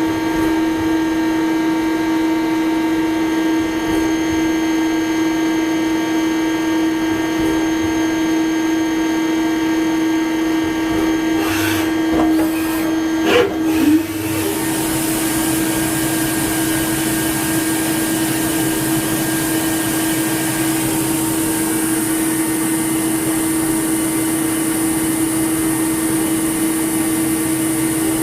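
Spinner TC-65 CNC lathe running with a steady hum made of several held tones. About halfway through, a short clatter of a few sharp knocks is heard, and after it a steady high hiss joins in.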